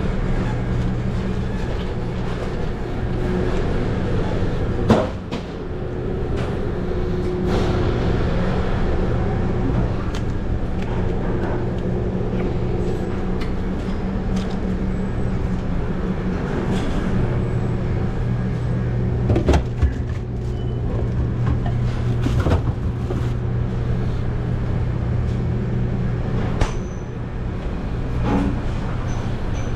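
Commercial kitchen ambience: a steady low hum of ventilation and kitchen equipment, with scattered sharp clanks and knocks of pans and utensils being handled.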